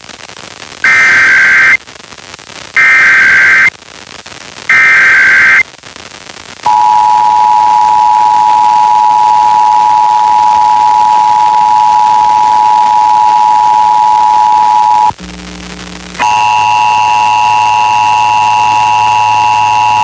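Emergency Alert System test over FM radio: three roughly one-second bursts of SAME header data tones, a second apart. Then the EAS attention signal, a steady two-tone beep held for about eight seconds. After a brief break about fifteen seconds in, a second steady buzzing tone sets in and holds.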